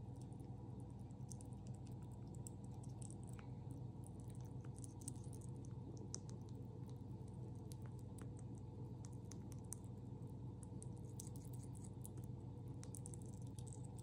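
Stoat (ermine) chewing soft raw minced meat: a run of faint, irregular wet clicks and smacks over a steady low hum.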